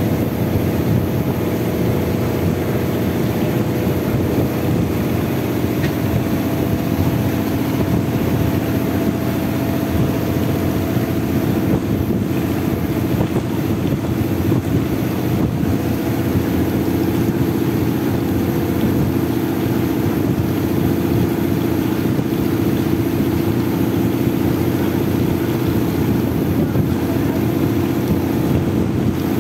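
Engine of a motorized outrigger fishing boat (bangka) running steadily under way, a constant drone with water and wind noise beneath it.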